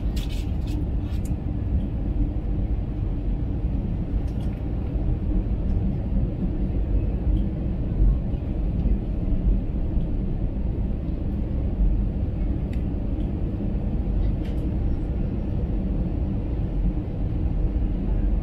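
Steady cabin rumble of an Airbus A320 in flight, heard from a window seat beside its CFM56-5B engine, a mix of engine noise and airflow. A few small clicks sound in the first second or so.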